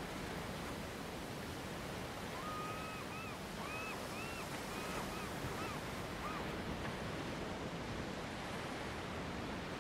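Sea surf washing steadily against the rocks. A few seconds in, a short series of about seven brief, high, rising-and-falling call notes sounds over it.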